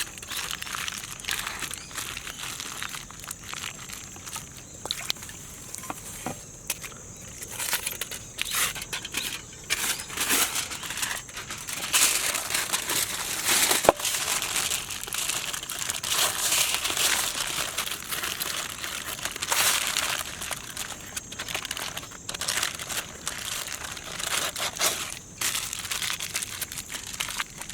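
Aluminum foil crinkling and rustling as it is handled, in irregular crackly spurts that are busiest in the middle.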